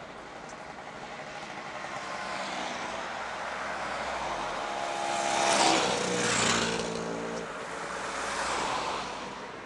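Motor scooters riding past one after another. Two pass close about halfway through, their engine notes dropping in pitch as they go by, and a van passes near the end.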